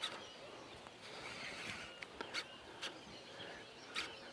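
Faint outdoor ambience with distant birds calling, broken by a few short sharp clicks.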